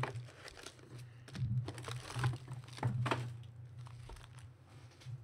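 Foil trading-card pack wrappers of Panini Prizm basketball jumbo packs crinkling as they are handled and stacked, in several separate rustles.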